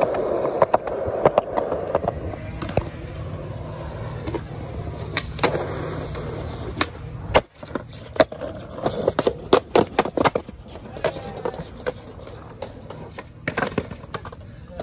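Skateboard wheels rolling over concrete, with many sharp clacks of the board's tail popping and the deck and wheels slapping down on landings. The rolling breaks off briefly about halfway, and the clacks come thickest in the second half.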